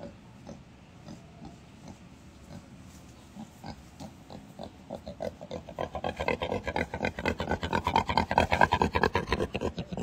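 A sow in heat grunting. Faint at first, then from about halfway through a rapid run of short grunts, several a second, growing louder as she comes up close.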